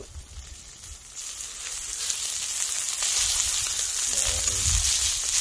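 Hanwoo beef sirloin slices sizzling on a hot stone grilling slab, the sizzle swelling louder about a second in and holding steady.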